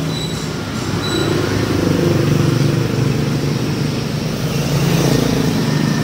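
A motor running nearby with a steady low hum that grows louder from about two seconds in.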